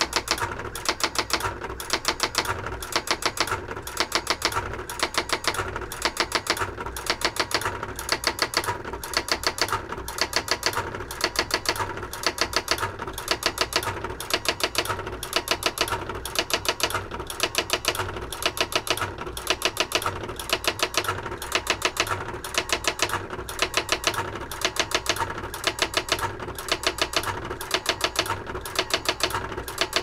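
Brother AX-22 electronic typewriter erasing a whole line with its lift-off correction tape. The printwheel strikes over each character in a fast, even train of clicks as the carriage steps back along the line.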